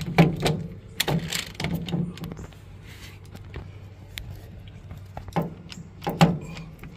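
Irregular knocks and clicks of tools and parts being handled, busiest in the first couple of seconds and again about five to six seconds in, with a quieter stretch between.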